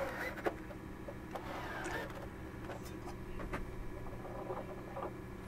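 A cordless drill/driver whirring briefly as a pulley is fastened onto a sewing machine shaft, with a few light metal clicks and taps, over a steady low hum.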